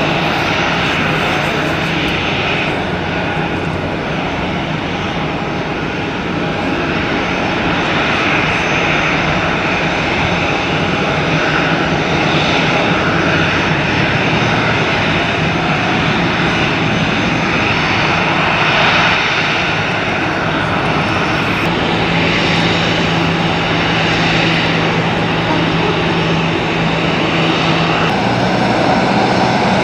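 Boeing 737-800 jet engines running, a steady loud rush with a low hum; the sound shifts abruptly a couple of times.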